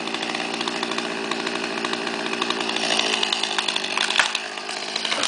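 Stihl chainsaw running steadily in a pine's trunk as the top is cut out and peels over, with a sharp knock about four seconds in.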